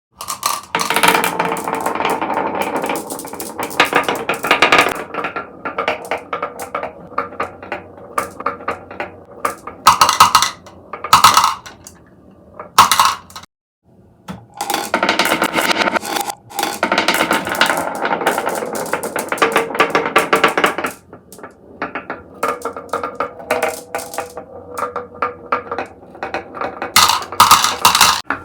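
Many marbles rolling and clattering down a marble run, a dense stream of clicks and rattles with some ringing, falling briefly silent about halfway through before picking up again.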